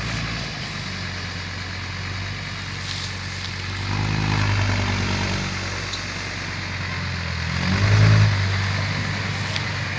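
Hino 'giant-face' six-wheel dump truck's 175-horsepower diesel engine running while it tips soil and pulls forward with the bed raised. The engine revs up twice, about four seconds in and most loudly about eight seconds in.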